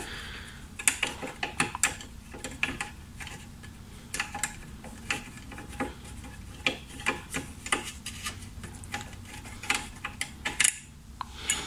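Irregular small clicks and light rattles of fingers working a bolt and fittings at a motorcycle's horn mount.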